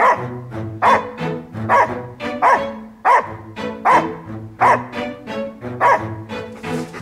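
A dog, a yellow Labrador retriever, barking about eight times at a steady pace, roughly one bark every 0.8 s, over background music.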